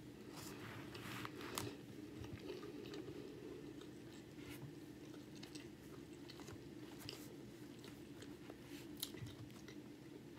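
Faint, close-miked chewing of a chili cheese hot dog: scattered soft wet mouth clicks and smacks over a steady low hum.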